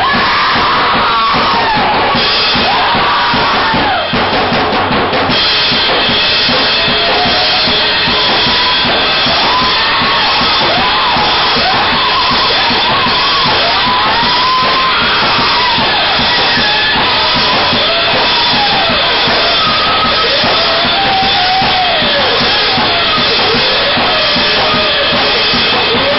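Drum kit played hard and continuously, under a wavering, gliding pitched noise from guitar effects pedals being worked by hand. Loud and dense throughout.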